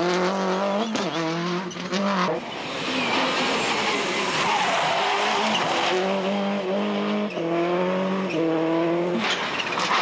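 Subaru Impreza WRC rally car's turbocharged flat-four engine revving hard under acceleration, its pitch climbing and dropping with quick upshifts. This happens twice, with a noisier stretch without a clear engine note in between.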